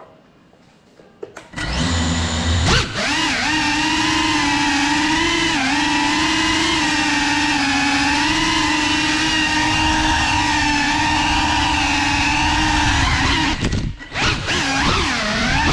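GEPRC 3.5-inch cinewhoop FPV drone's motors and ducted propellers spinning up after a second and a half of quiet, then a steady buzzing whine with small wobbles in pitch as it flies. About 14 seconds in the whine briefly drops away, then comes back rising and falling.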